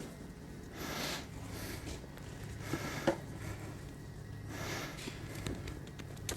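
A person breathing close to the microphone, two long breaths, with a couple of light knocks about three seconds in over a faint steady hum.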